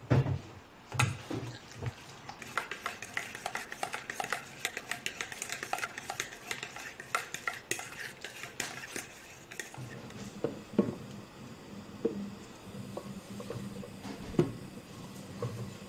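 Spoon beating a thick tofu and chickpea-flour batter in a stainless steel bowl: rapid clinking of metal on metal, several strokes a second, for about seven seconds. After that, a few scattered knocks and scrapes.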